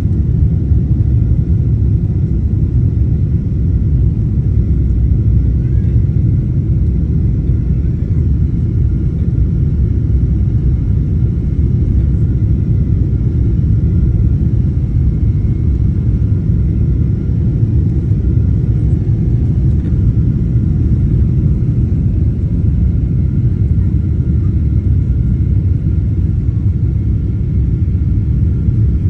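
Steady low rumble inside the cabin of a Boeing 777-300ER airliner, with a few faint steady high tones over it; the level stays even throughout.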